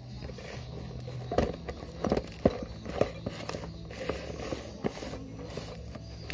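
A plastic-wrapped, taped parcel being handled by hand: several sharp knocks and light rustling as it is picked up, turned and set against the tile floor, over a low steady hum.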